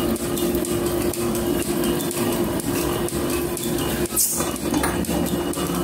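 Metal planer running a cut on a steel bar: a steady motor and drive hum with fast, even ticking, about four ticks a second, as the table carries the work under the tool. A brief hiss a little past four seconds in.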